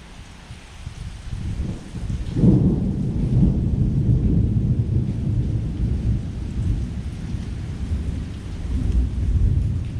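Thunder during a heavy rainstorm: a low rumble builds, breaks into a loud clap about two and a half seconds in, and rolls on as a long low rumble, with rain falling throughout.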